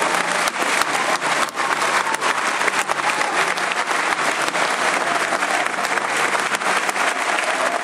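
Football crowd applauding in a stadium stand, many hands clapping at once, with sharp individual claps close by.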